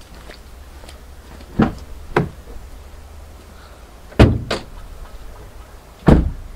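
Car door of a Jeep SUV opening and being shut: a few latch clunks, then two heavy thuds, about four seconds in and again just after six seconds.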